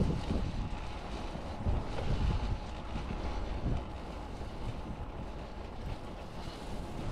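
Wind buffeting the microphone of a GoPro on a moving bicycle: an uneven low rumble that swells in gusts, over steady riding noise.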